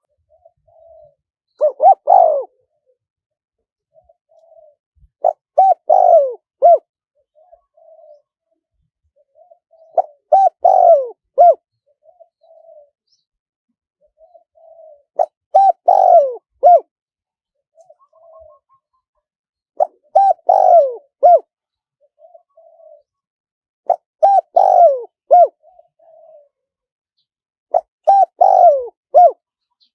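Spotted dove cooing: a loud phrase of several coos, some falling in pitch, about every four to five seconds, with soft short coos between the phrases.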